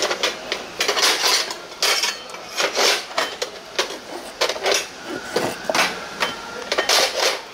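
Kitchen clatter of dishes and utensils: a loud, irregular run of about a dozen sharp knocks and clinks, some ringing briefly.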